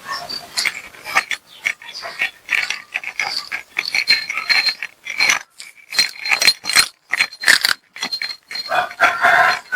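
A tabby cat chewing and eating a treat close to the microphone: quick, irregular wet crunches and smacking clicks, with brief pauses between bites.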